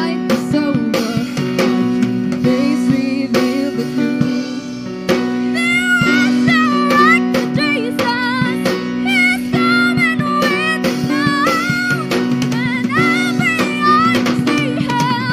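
A group singing a worship song to acoustic guitar accompaniment, with the voices carrying the melody over steady strummed chords.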